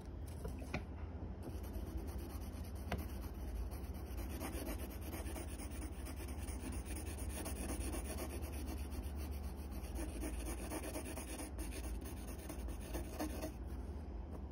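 Graphite pencil shading on paper: fast back-and-forth scratching strokes, starting about a second in and stopping near the end, over a low steady hum.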